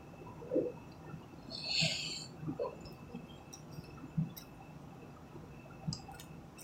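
A person's soft breath or exhale about two seconds in, with a few faint mouth sounds and small taps in a quiet room.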